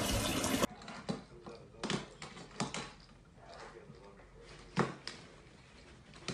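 Water running from a bathtub tap, cut off abruptly less than a second in, followed by scattered light taps and knocks as a white cockatoo hops and flaps on a glass-topped table, with a louder knock near the middle.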